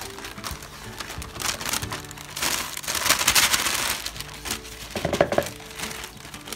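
Baking paper crinkling and rustling as sifted cake flour is tipped off it into a bowl, loudest for a second or so from about two and a half seconds in, with a shorter rustle near the end. Soft background music plays underneath.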